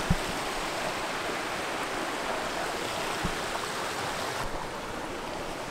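Steady rushing of a nearby creek, with a couple of soft low bumps from the camera being moved.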